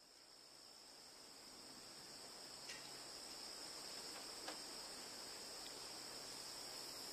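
Faint, steady high-pitched buzzing of cicadas, fading in, with a few tiny clicks.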